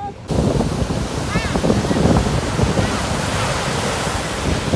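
Sea waves breaking and washing up on a sandy beach, with wind buffeting the microphone. The sound cuts in abruptly a moment after the start.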